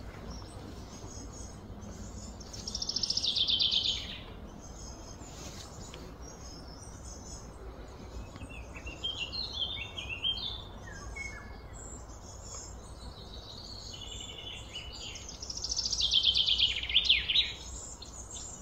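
Birds singing: two loud, fast trills, one about three seconds in and one near the end, each dropping slightly in pitch, with shorter chirping notes between them over a low steady background rumble.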